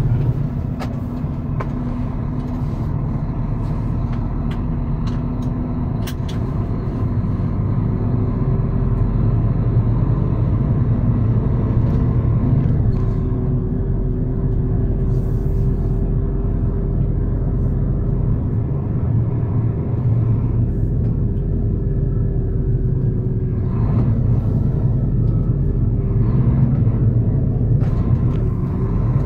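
Scania truck heard from inside the cab while driving: steady diesel engine drone and road rumble. A thin whining tone rises a little, then holds through the middle before fading out.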